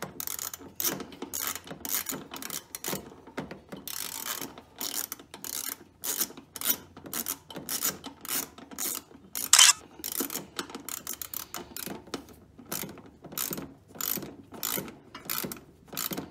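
Socket ratchet clicking in uneven runs, a few clicks a second, as an 8 mm bolt is backed out of a generator's vibration bracket. About two-thirds of the way through there is one louder knock.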